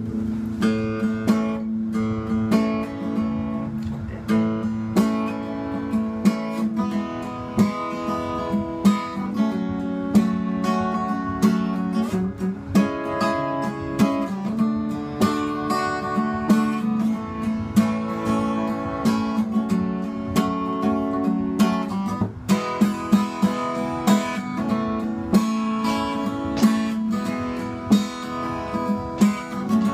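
Acoustic guitar strummed as an improvised chord backing in the key of A. The chords change every second or two, with sharp rhythmic strokes and clean, muted chord changes.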